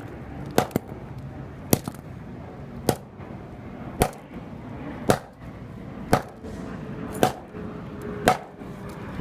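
Sledgehammer smashing a flip phone: eight hard blows in a steady rhythm, about one a second.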